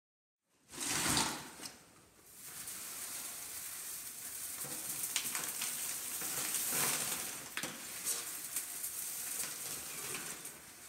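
Stringy aluminium lathe swarf rustling and crackling as gloved hands scoop it up and drop it into a cardboard box. There is a louder rustle about a second in, then a steady crackle of many small clicks.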